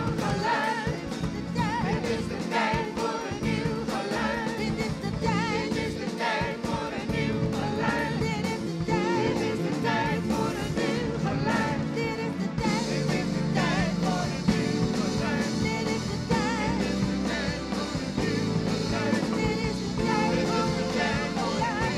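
Live band with drum kit and double bass playing while an ensemble of singers sings over it.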